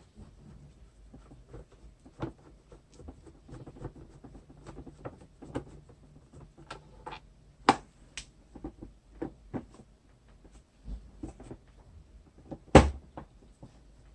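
Scattered clicks and knocks of plastic vacuum-cleaner parts and tools being handled during disassembly, with a sharp knock about eight seconds in and a louder one near the end.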